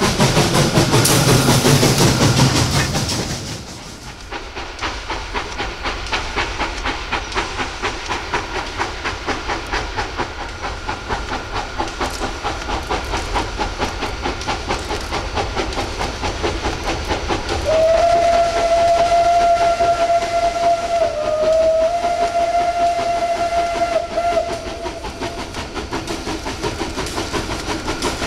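Class 423 steam tank locomotive 423.0145 working a freight train: loud steam hiss close by at first, then the steady beat of its exhaust as it approaches. Past the middle it sounds one long steam whistle blast of about seven seconds, with a brief dip in pitch partway through.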